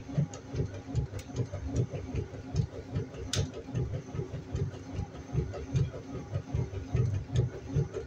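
Washing machine running: a steady motor hum under rapid low pulses, about three or four a second, with light ticks and one sharp click about three seconds in.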